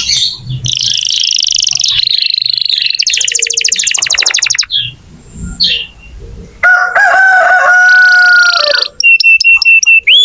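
Domestic canary singing a long, varied song: buzzy high phrases, a rapid trill, a lower held phrase, then quick repeated notes near the end.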